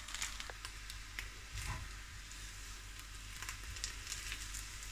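Plant-based wheat and pea protein bacon rashers frying in oil in a non-stick pan: a soft, steady sizzle with a few light ticks.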